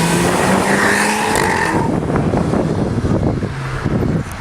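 A car engine revving up hard, its pitch climbing. A high squeal comes in over it for the first couple of seconds, and then it turns to a dense, rasping exhaust sound that dips just before the end.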